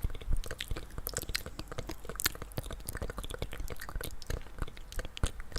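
ASMR mouth sounds: licking, with a dense, irregular run of small wet clicks and smacks.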